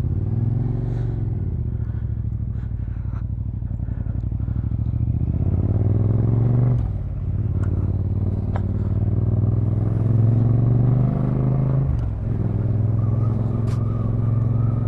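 Motorcycle engine accelerating through the gears. Its pitch climbs, drops sharply at a gear change about seven seconds in, climbs again and drops at a second change about twelve seconds in, then holds steady.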